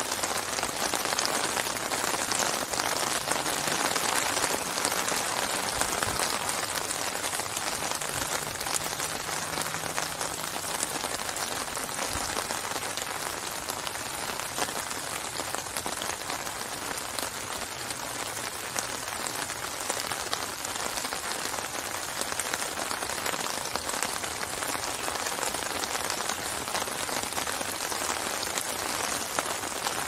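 Steady rain falling on open water: countless small drops striking the surface, blending into an even hiss.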